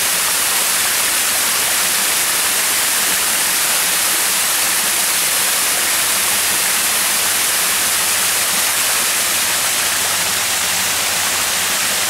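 Small two-tier waterfall, water pouring down rocks and over a low stone ledge into a pool: a steady, even rush of falling water.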